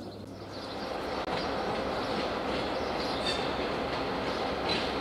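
DR1A diesel multiple unit arriving: the noise of the train running on the rails grows louder over the first second or so, then holds steady, with a few short high wheel squeals.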